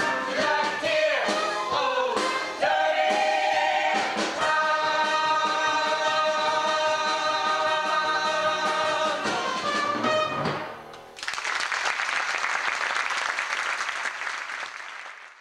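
Musical-theatre ensemble singing with a small pit orchestra, building to a long held final chord that ends about ten seconds in. About a second later the audience breaks into applause, which fades out near the end.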